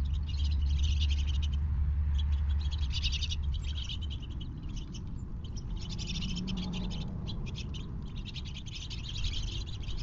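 Small feeder birds chirping and twittering in rapid high runs. A low rumble runs under them for the first few seconds and then fades.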